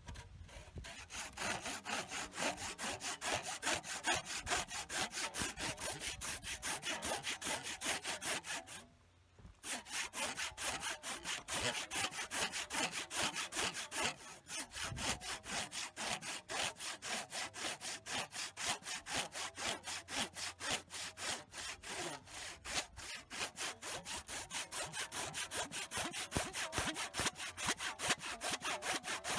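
A hand tool worked rapidly back and forth on a workpiece in steady, even strokes, several a second, with one short pause about nine seconds in.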